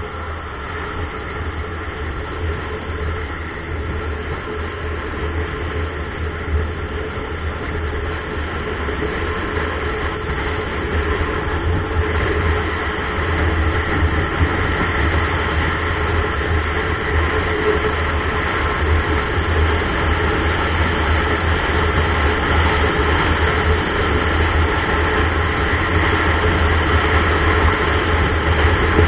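Motorcycle engine running with wind noise at road speed: a steady low drone that grows gradually louder.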